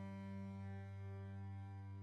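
Background music: a low sustained chord or drone that holds steady, with no beat.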